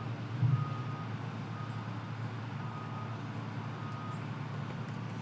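A vehicle backup alarm beeping about once a second over a steady low engine rumble; the beeps stop about four seconds in.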